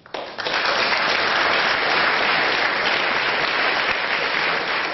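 Audience applauding in a debating chamber: the clapping starts suddenly as a floor speech ends and goes on steadily and loudly.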